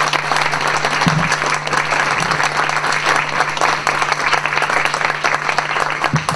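Audience applauding: a dense, steady patter of many people clapping in a room.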